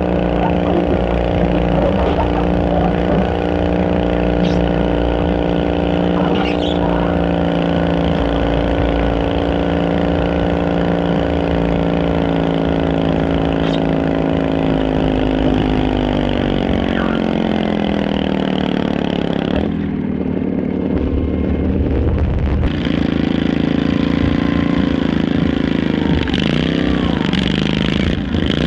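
Altered garden tractor engine running hard under load while pulling a weight sled, its note falling steadily in pitch over several seconds as it lugs down under the growing load. Near the end another garden tractor engine is running.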